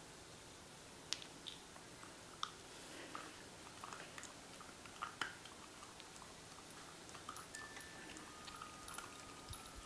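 Pembroke Welsh Corgi puppy chewing a treat: faint, irregular crunching clicks, a few louder bites among them.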